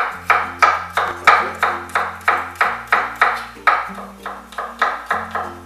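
Knife chopping garlic on a cutting board: quick, even strokes, about three a second.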